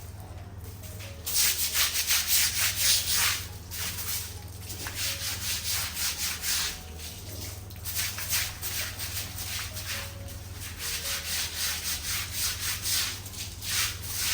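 Scrubbing strokes on a wet hard floor, a stiff broom or brush worked back and forth at about four strokes a second in runs, starting about a second in and breaking off briefly several times.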